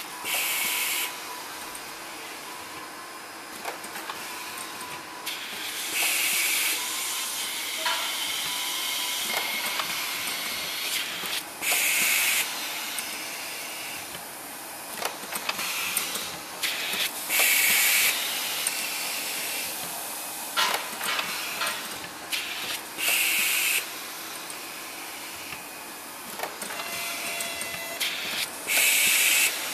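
Automatic two-colour pad printer running through its print cycle. A loud hiss of compressed air being released comes about every six seconds, six times in all, between light clicks and clatter from the moving carriage and pads.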